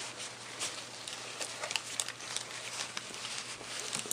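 Faint rustling of a fabric backpack with a few light clicks as a handful of pens are slid into its pocket.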